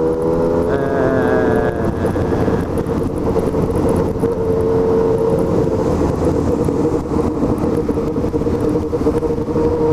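Yamaha MT-09's three-cylinder engine running at steady revs while riding, heard onboard with wind and road noise.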